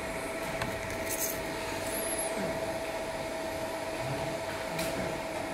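Steady fan and motor hum of a fiber laser marking machine idling while its red guide light runs, with a constant mid-pitched whine.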